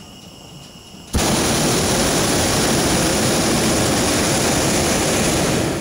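Hot air balloon's propane burner firing: a loud, steady rushing noise that starts suddenly about a second in and lasts nearly five seconds.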